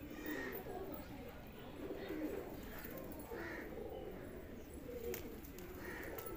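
A flock of fancy pigeons cooing, a steady murmur of overlapping low coos, with a few short higher calls now and then.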